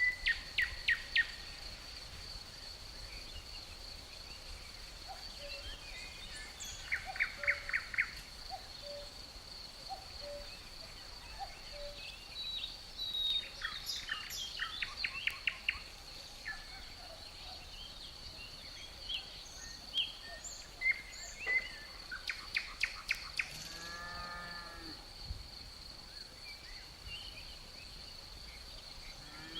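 Outdoor nature ambience: a steady high insect drone, with songbirds calling in quick trills several times and small chirps between. Near the end comes one short, low animal call.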